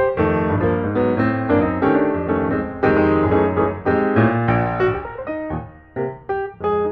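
Background music: piano playing a quick run of notes and chords, dipping briefly near the end.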